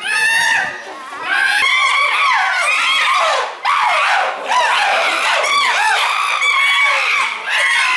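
A group of chimpanzees screaming all at once in a fight: many high-pitched cries overlap almost without a break, with a couple of brief lulls. This is agitated fighting screams, with everybody fighting everybody.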